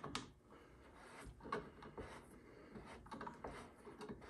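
Faint, scattered light clicks and rubbing as a small Allen wrench is handled in a wooden block.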